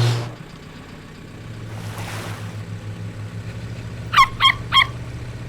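Cartoon sound effects for an animated young Australian pelican: three quick honking calls in a row about four seconds in, over a steady low hum, after a sudden hit at the very start.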